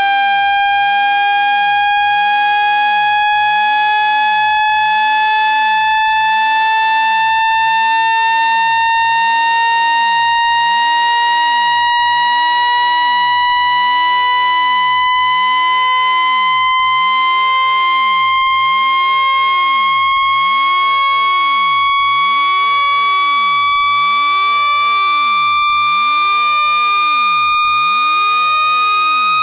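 Synthesized speaker-cleaning tone: a loud, buzzy tone with many overtones, rising slowly and steadily in pitch, meant to vibrate dust and water out of an iPhone speaker.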